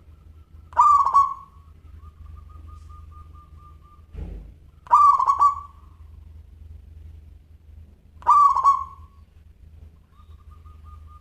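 Local zebra dove (perkutut) cooing: three loud, clear calls about three and a half seconds apart, with a faint soft trilled coo between them. A brief low thump just before the second call.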